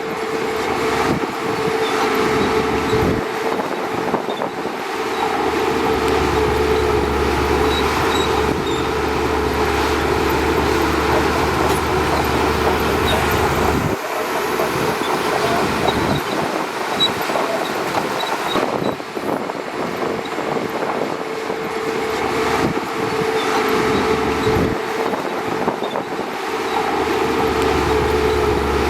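Shantui DH17C2 crawler bulldozer running steadily with a constant engine hum and a metallic rattle. A deeper rumble joins in from about six to fourteen seconds and again near the end.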